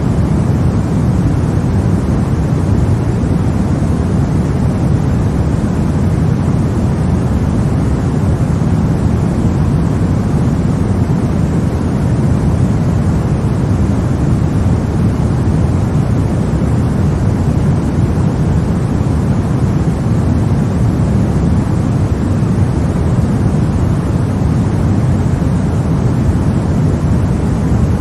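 White noise: a steady, unchanging rush, heavier in the low end than the high.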